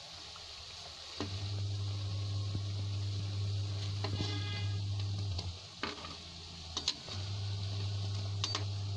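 Pakodi fritters deep-frying in hot oil in a kadhai, the oil sizzling steadily, while a metal slotted spoon turns them, clicking and scraping against the pan several times. A steady low hum drops out twice, briefly at the start and again past the middle.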